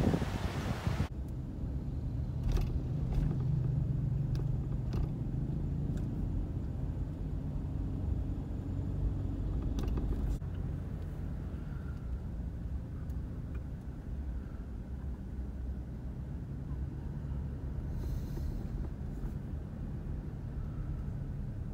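Wind buffeting the microphone, cut off about a second in, then the steady low hum of a car driving, heard from inside the cabin, with a few light clicks and knocks.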